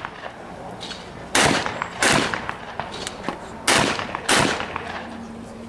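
Shotgun firing skeet doubles: two pairs of sharp shots, each pair about 0.7 s apart, every shot ringing out after the bang.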